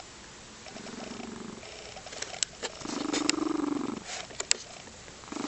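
Lynx point Siamese cat purring in rumbling bouts, a soft one about a second in and a louder one about three seconds in, with a few sharp clicks in between.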